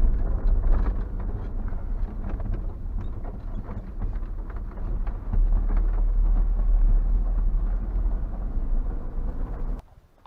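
Car driving over a rough dirt field track, heard from inside: a heavy low rumble with many knocks and rattles. It cuts off suddenly near the end.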